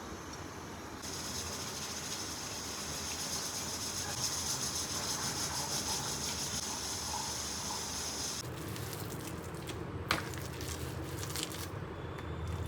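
Kitchen cooking noise: a steady hiss with light crackling that fades out about eight and a half seconds in, then a single sharp clack about ten seconds in.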